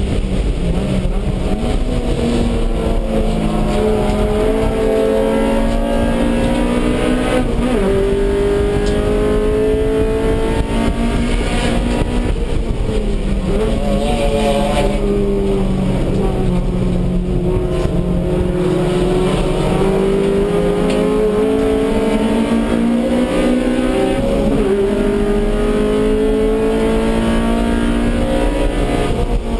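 Stock Honda B18C5 1.8-litre VTEC four-cylinder in a Civic EG race car, heard from inside the stripped cabin while driven at race pace. The engine note climbs through the revs, drops sharply at each gear change or lift, then climbs again, over and over.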